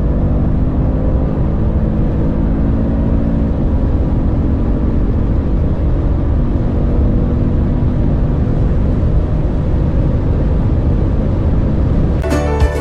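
A car's engine pulling hard at full throttle at high speed, with a brief break for an upshift about three and a half seconds in. Music starts just before the end.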